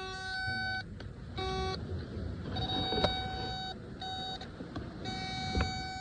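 Warning buzzer of a John Deere 50G mini excavator beeping on and off in irregular beeps, from a third of a second to about a second long, with two sharp clicks, about three seconds in and near the end. The machine is failing to start.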